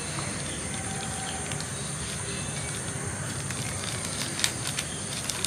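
Steady outdoor background noise with a thin, high, constant insect-like drone, and one sharp small click about four and a half seconds in.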